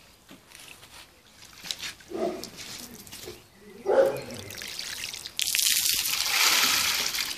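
Water splashing onto the top of a water-filled plexiglass tank packed with hydrogel beads, a loud even rush from about five and a half seconds in to the end. Before it, faint trickling, broken by two short voice-like sounds, the louder about four seconds in.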